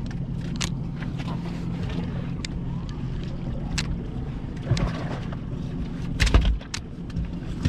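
Boat engine idling with a steady low hum, with scattered light clicks and a heavy thump about six seconds in.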